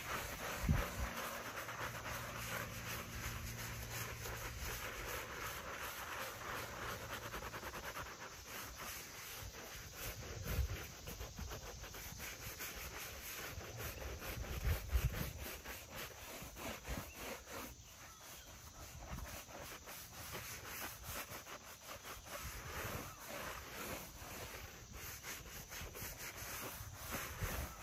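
A hand scrub brush scrubbing a flat stone grave marker in quick repeated strokes, working in a cleaner that was left to soak on the stone. A few dull low thumps come through, about a second in and again near the middle.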